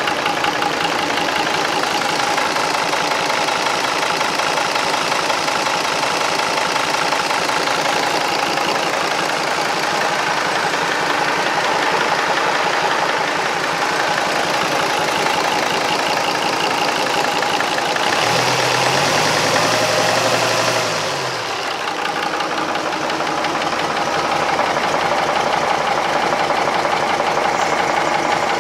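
Marinised Gardner 5LW five-cylinder diesel engine running steadily just after start-up. About 18 seconds in, its note rises and falls once, then it settles back to its steady run.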